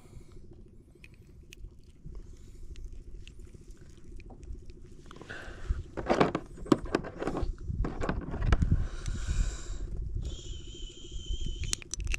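Close handling noise of a caught grouper being unhooked by hand: glove and fish rustling and scratching, with many small sharp clicks from the metal jig and its hooks. The handling is busiest from about five to ten seconds in.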